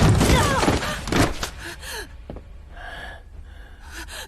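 A scuffle of sharp impacts and short grunts, then a person gasping for breath from about two seconds in.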